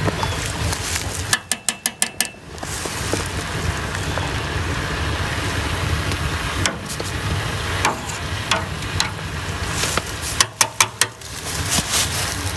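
Sap boiling hard in a stainless steel evaporator pan over a wood fire, a steady rushing noise. Twice, about two seconds in and again near the end, a wire-mesh skimmer is rapped against the pan's metal rim about half a dozen times in quick succession, knocking off the foam it has skimmed.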